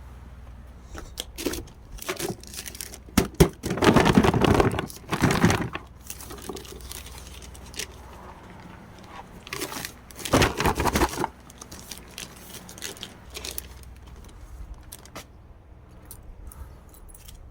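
Packaging being handled and torn open, with irregular bursts of tearing and crinkling and scattered clicks. The loudest bursts come about four seconds in and again around ten seconds.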